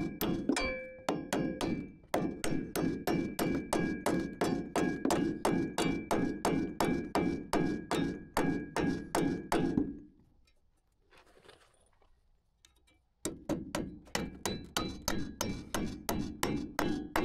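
Hammer driving nails through metal joist hangers into lumber: quick, even blows about four a second with a steady metallic ring under them. The hammering stops about ten seconds in and starts again some three seconds later.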